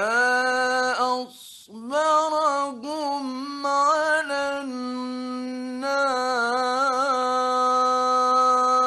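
A male Egyptian Quran reciter chanting in the melodic mujawwad style: one long phrase of held, ornamented notes with a brief breath-break about a second in. The voice comes from an old 1960s radio recording.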